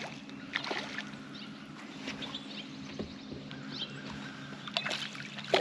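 Steady low hum of a bass boat's bow-mounted electric trolling motor, with scattered short clicks over it.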